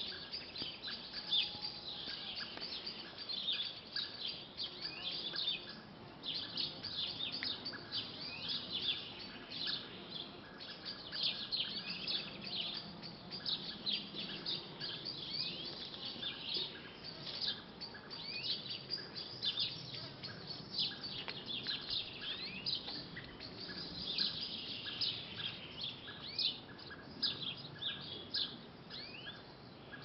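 Several small songbirds chirping and singing at once, a dense run of short, high chirps and trills overlapping throughout, over a faint low background hum.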